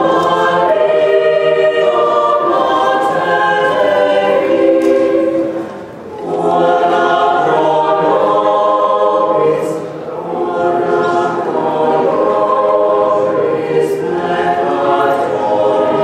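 Mixed choir of men's and women's voices singing a cappella in sustained chords, with a short break between phrases about six seconds in and a brief dip near ten seconds.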